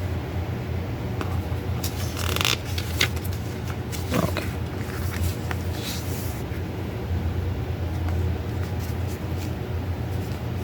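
Steady low background hum, with a few brief rustles and scrapes of a CD's paper booklet and plastic case being handled, the loudest about two to three seconds in.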